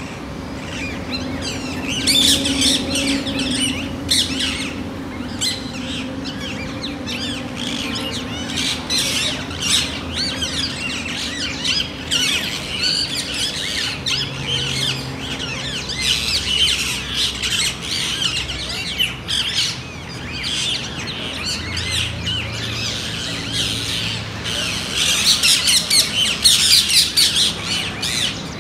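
A flock of rose-ringed parakeets calling, many harsh squawks overlapping without a break and busiest near the end.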